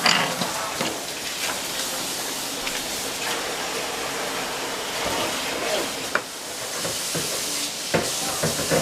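Food sizzling in a pan on the stove, a steady hiss, with a few sharp clinks of utensils near the start, about six seconds in and again near the end.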